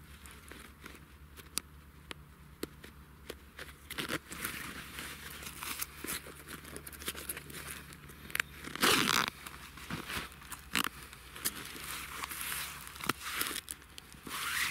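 Fabric rustling and small clicks of hiking boot laces being tied and a trouser leg pulled down and adjusted over the boot, with a louder rustling swish about nine seconds in.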